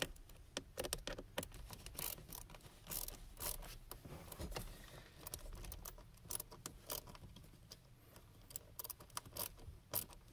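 Faint, irregular small metal clicks and rattles of a finger ratchet and bolts being worked by hand, as a blower motor's mounting bolts are snugged down.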